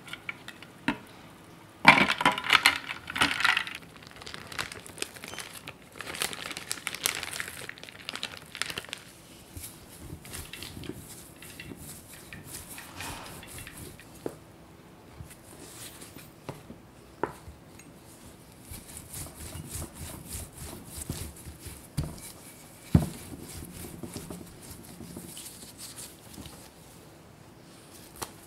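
Close-up kitchen handling sounds: a dense clatter of ice in a tray of ice water about two seconds in, then soft rustling and small clicks as pie dough is handled and cut with a knife on a wooden board, with one sharp thump near the end.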